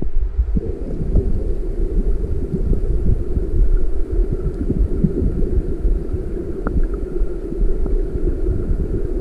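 Rushing river water heard through a camera held underwater: a muffled, steady low rumble full of crackles and small knocks.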